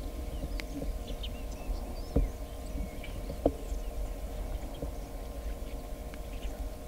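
Outdoor bush ambience: scattered small bird chirps over a steady low rumble, with two short knocks about two and three and a half seconds in.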